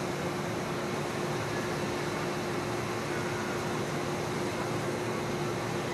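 Steady mechanical hum with a constant low tone under an even hiss, from an electric train creeping through an automatic train-wash plant.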